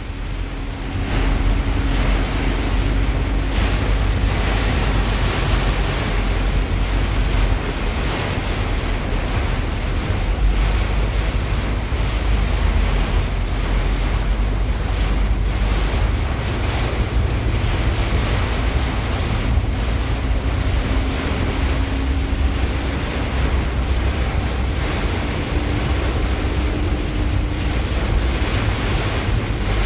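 Heavy rain pouring steadily, with wind buffeting the microphone as a low rumble.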